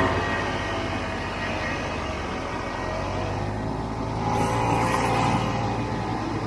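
Snowmobile engine running under the rider, easing off just after the start and then speeding up again from about four seconds in, the engine note rising.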